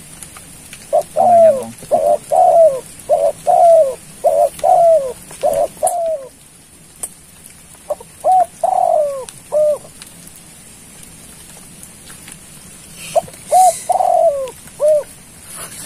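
Spotted dove coos from a tekukur lure, repeated in phrases: a run of about nine rolling coos at roughly two a second, then two shorter bursts of three or four coos.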